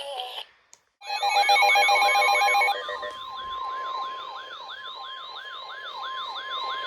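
Emergency alert attention signal: after a short gap, a loud pulsing electronic beep, then a steady tone under a siren wail that rises over and over, about three sweeps a second.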